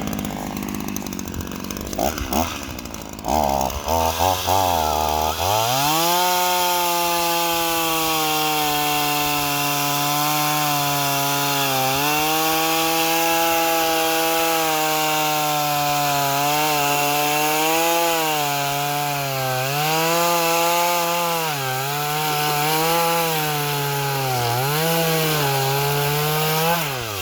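Small Ryobi gas chainsaw with a two-stroke engine, ticking over at first, then revved to full throttle about five seconds in and cutting a log. Its pitch sags again and again as the chain bites into the wood under load, then it falls back off throttle at the end.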